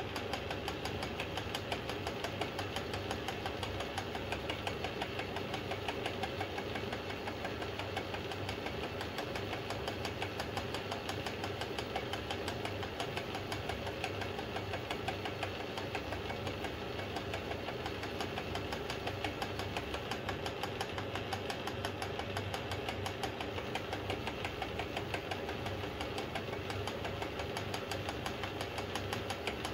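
Atlas metal lathe running under its belt-driven electric motor while a boring bar takes a light clean-up cut of a couple of thou inside a bushing. It makes a steady mechanical running sound with a fast, even ticking that holds level throughout.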